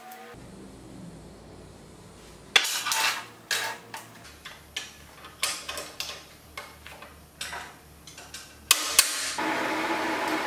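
Steel tube and scissor car jack clinking and knocking against each other and the steel table top as they are handled and fitted together: a dozen or so irregular metallic clanks over several seconds, two sharper ones near the end. A steady rubbing noise begins just before the end.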